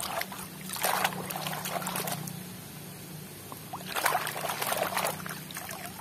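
Hand swishing and scrubbing a plastic toy in a basin of muddy water: splashing and sloshing in two bursts, one about a second in and one about four seconds in. A steady low hum runs underneath.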